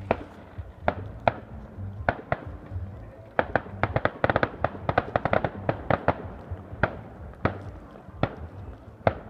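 Fireworks going off: single sharp bangs about once a second, with a dense rapid volley of cracks in the middle. Background music with a low bass line runs underneath.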